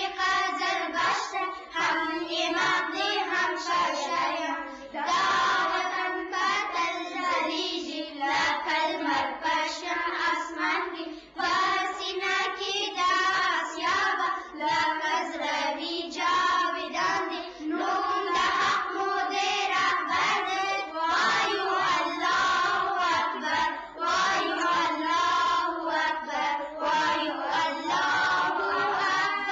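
Children singing in short phrases, with brief pauses between lines.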